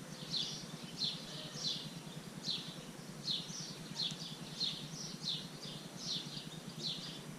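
A bird chirping over and over, short high calls coming about one and a half times a second, over a steady low hum.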